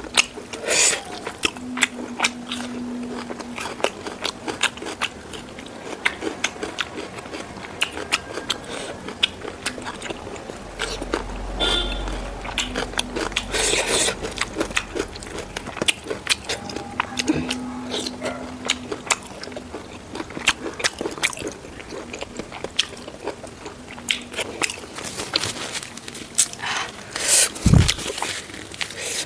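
Close-miked eating: biting and chewing pork rib curry with rice, a steady run of small irregular crunches and clicks, with a heavier knock near the end.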